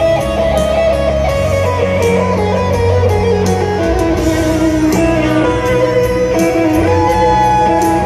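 Live rock band playing in an arena, led by an electric guitar solo of held and bending notes over the band, heard through the arena sound system from within the crowd.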